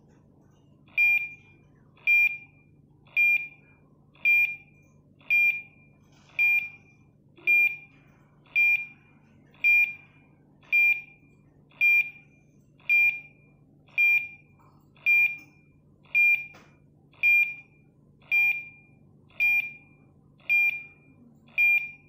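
Burglar alarm control panel beeping in networking (pairing) mode: a short, high beep about once a second, keeping time with the countdown on its display.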